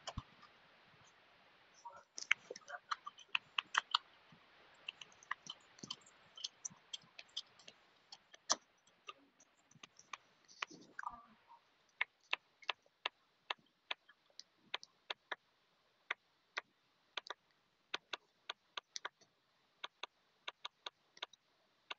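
Typing on a smartphone's on-screen keyboard: faint, irregular light clicks, sometimes in quick runs, a few each second.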